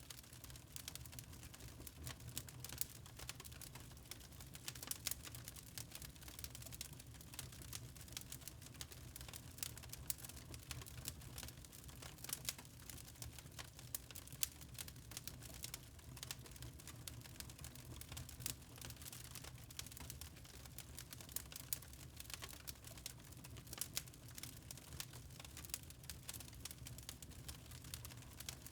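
Wood fire crackling in a fireplace: many quick, irregular snaps and pops over a low, steady rumble.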